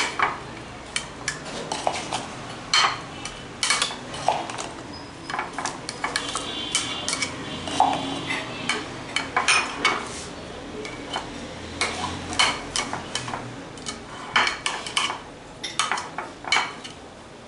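Metal table knife clinking and scraping against a glass jar and a glass dish in irregular sharp taps, as strawberry jelly is scooped out and spread.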